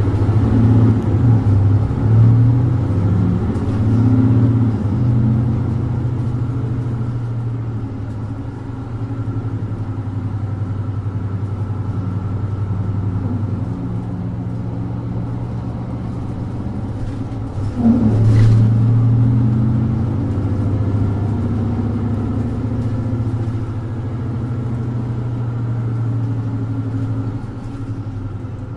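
Mercedes-Benz Citaro 2G bus's OM470 inline-six diesel, heard from inside the bus, pulling the bus along through its ZF EcoLife automatic gearbox. The steady low engine note swells and eases with the throttle, with a sudden surge about two-thirds of the way through.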